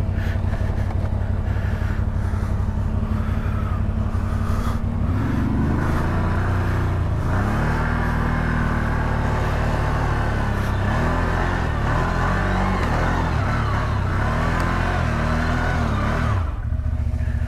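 CF Moto CForce 1000 ATV's V-twin engine running steadily, then revved up and down repeatedly from about five seconds in for over ten seconds, before settling again near the end.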